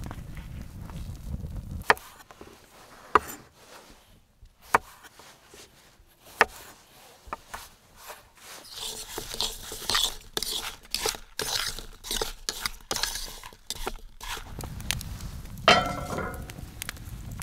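Camp cooking sounds: a few sharp knocks and then a busy clatter of food and utensils handled on a wooden cutting board. Near the end a cast-iron skillet clanks onto a metal fire-pit grate with a short metallic ring, over the low rumble of a wood fire and wind.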